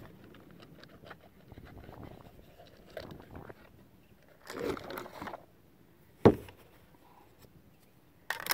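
Shotgun shells being handled and loaded into a shotgun: scattered small scrapes and clicks, with one sharp click a little past the middle.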